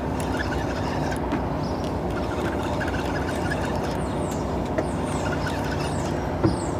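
Small outboard motor running steadily, with a light knock near the end.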